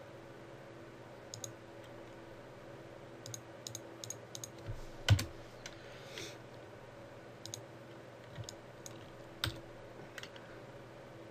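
Scattered computer mouse clicks and keyboard key presses, about a dozen irregular taps, with one louder thump about five seconds in, over a faint steady hum.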